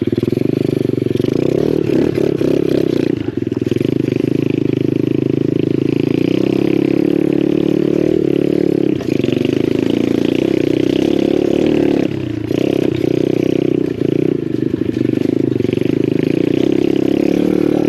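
Lifan 125 single-cylinder four-stroke pit bike engine running steadily under way, with the throttle easing off briefly a few times.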